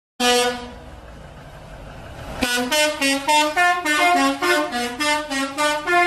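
Indonesian bus 'telolet' musical air horn: one short note at the start, then about two and a half seconds in a fast tune of short stepped notes, about five a second.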